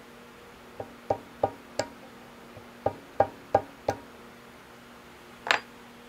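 Mallet tapping a small brass pin into a steel collar on the shaft end of a lathe saddle: two runs of four quick taps, each with a short metallic ring, then a single sharper knock near the end.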